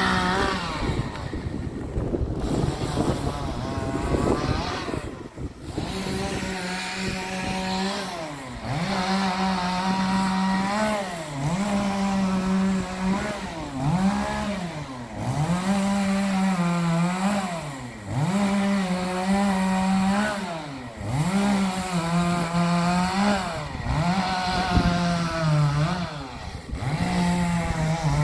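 Two-stroke chainsaw cutting branches from a wind-blown tree. After a rougher stretch at the start, the engine is revved to full throttle over and over for a second or two at a time, dropping back between cuts.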